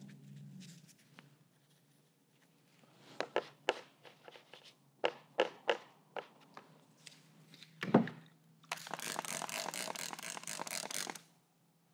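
Aerosol spray can hissing over the painting in one burst of about two and a half seconds near the end. Before it come a scatter of sharp clicks and taps and a single low thump.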